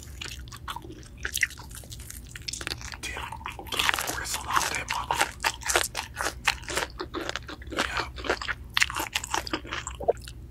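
Crispy fried chicken coating crunching as it is bitten and chewed close to the microphone: many sharp crunches in quick succession, densest a few seconds in and again near the end.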